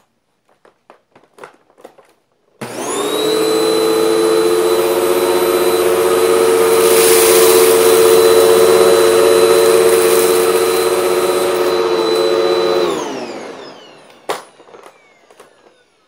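Hoover WindTunnel MAX upright vacuum cleaner switched on about two and a half seconds in and running steadily with a whine as it is pushed over carpet to pick up debris, then switched off and winding down with a falling whine. A few faint clicks come before it starts and a single knock after it stops.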